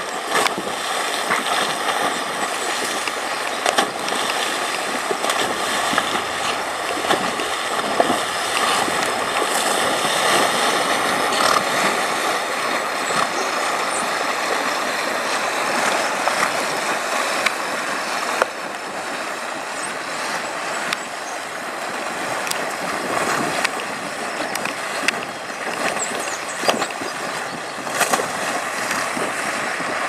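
Water sloshing and splashing steadily around several horses' legs as they wade through a river, with occasional sharper splashes.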